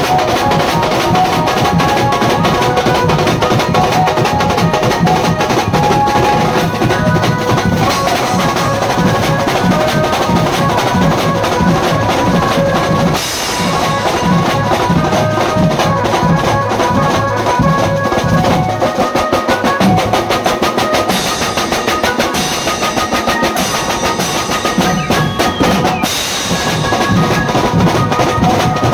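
Loud band music: fast, heavy drumming with drum rolls under a repeating melody, in the manner of a Mumbai 'beats' band. There are short breaks in the drumming about 13 and 26 seconds in.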